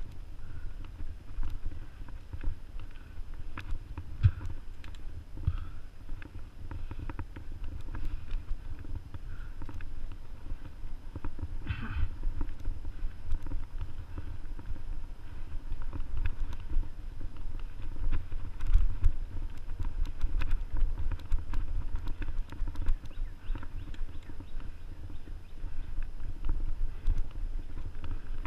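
Low rumble of wind and vibration on an action camera riding along a dirt forest trail, with a steady run of knocks and rattles from the bumps. A brief higher-pitched squeak comes about twelve seconds in.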